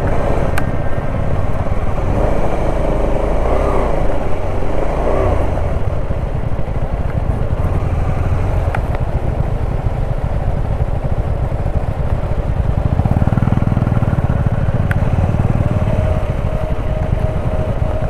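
Motorcycle engine running steadily at low speed over a rough, stony dirt track.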